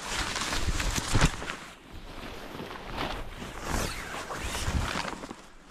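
Camouflage fabric of a pop-up hunting ground blind rustling and flapping as it is pulled out and unfolded, with a sharp knock about a second in. Wind rumbles on the microphone underneath.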